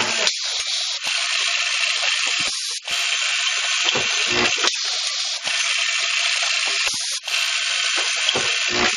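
Automatic cap-nut welding machine running: a steady buzz from its vibratory bowl feeders, broken every second or two by short mechanical clicks as the feed and welding head cycle. Deeper thuds come about four seconds in and again near the end.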